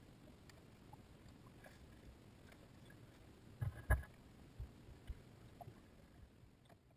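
Quiet, with a few short knocks and thumps on a drift boat as a man steps off it onto the sandbar, the loudest pair about four seconds in and a couple of fainter ones after.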